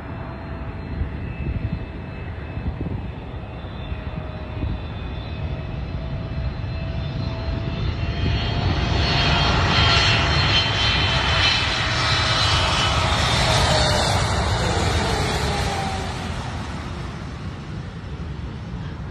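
Wide-body twin-jet airliner on final approach, its engines' whine and rumble growing louder as it comes in low. The sound peaks about ten to fourteen seconds in, then the pitch slides down and the sound eases off as the jet passes and lands.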